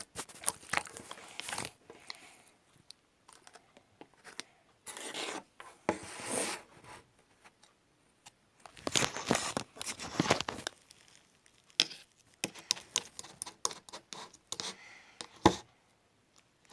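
Slime being squeezed, stretched and poked by hand: bursts of crackling and sharp clicking pops, in clusters with short quiet gaps between them.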